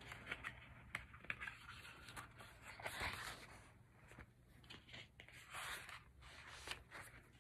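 Faint rustle and swish of thick photobook pages being turned and handled, with a few light ticks of fingers on paper; the loudest page swish comes about three seconds in.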